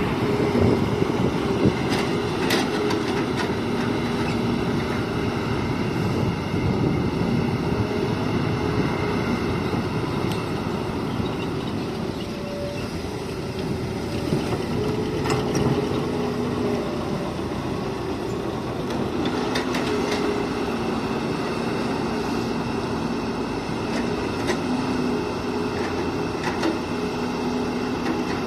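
Hitachi hydraulic excavator working, its diesel engine running steadily with a droning hydraulic tone that swells and fades as it works. A few sharp metallic knocks are scattered through it.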